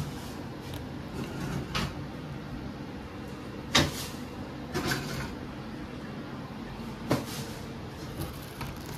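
A stainless mesh sieve knocking and tapping against a plastic tub while blended coconut is strained for coconut milk: about five short, separate knocks, the loudest about four seconds in.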